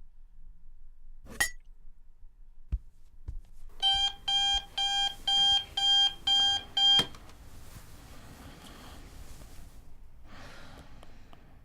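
Electronic alarm beeping, about seven shrill beeps at roughly two a second, cut off suddenly with a click.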